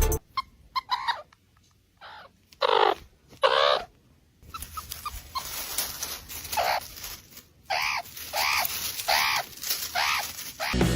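An animal giving a series of high, whining cries, each rising and falling in pitch: two longer ones about three seconds in, then shorter cries repeated roughly every half second near the end.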